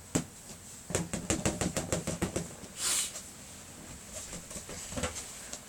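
A quick run of light taps and knocks, about eight in a second and a half, then a short hiss about three seconds in and a few scattered taps near the end.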